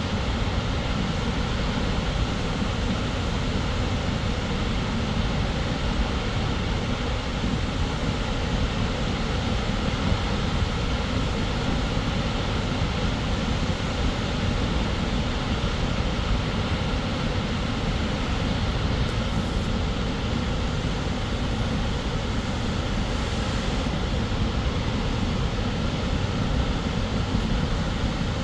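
Snoqualmie Falls, a 268-foot waterfall, plunging: a deep, steady rush of falling water that never changes.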